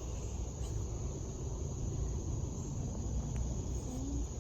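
Outdoor ambience: a steady high-pitched drone of insects over a low, steady rumble.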